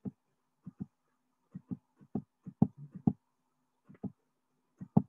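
A dozen or so soft computer mouse clicks, many coming in quick pairs at irregular gaps, over a faint steady hum.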